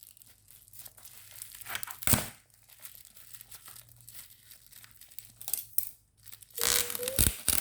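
Plastic parcel packaging being torn open and crinkled by hand: scattered crackles, one sharp loud rip about two seconds in, and a longer stretch of tearing near the end.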